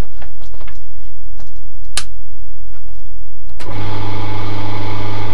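Small Clarke benchtop wood lathe's electric motor switched on and run for about two seconds, a steady hum with a strong low buzz, starting and stopping abruptly. It follows a few light clicks and one sharp click about two seconds in.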